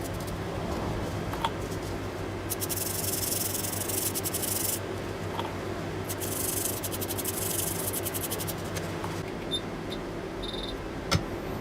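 A small brush scrubbing a circuit board in two short bouts, a fine high hiss made of quick strokes, over a steady low electrical hum, with one sharp click near the end.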